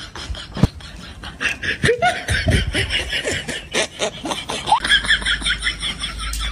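Laughter: a quick run of short, repeated laugh pulses, louder from about two seconds in. A single sharp click comes near the start.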